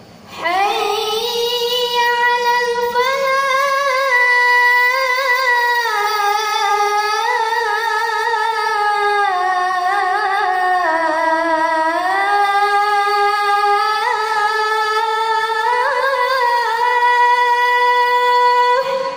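A boy muezzin's high voice singing one long, ornamented, held phrase of the Islamic call to prayer (adhan) in a single breath, starting about half a second in. The melody sinks lower midway through and climbs back up before he stops near the end.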